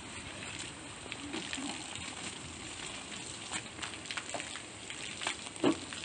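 Water spraying from a washing hose onto a backhoe loader's bodywork: a steady hiss with scattered spattering and dripping clicks.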